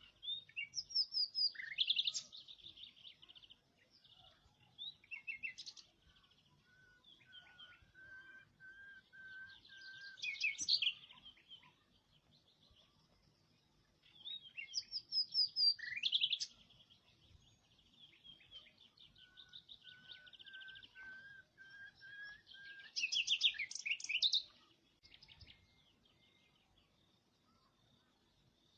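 A songbird singing: long warbling phrases with rapid trills, returning every several seconds, with a thin wavering whistle between them.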